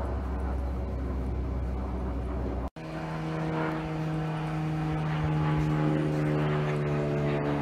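Propeller-driven light airplane flying overhead, its engine droning. About a third of the way in the sound breaks off for an instant, then resumes as a steadier drone with a clear pitched hum.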